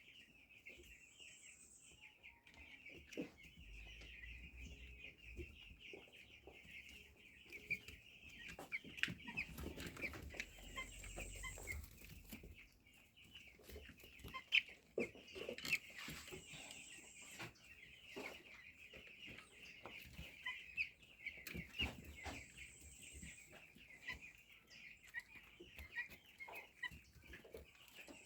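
A pen of young broiler chicks peeping and cheeping continuously as a flock, with scattered light knocks and clatters.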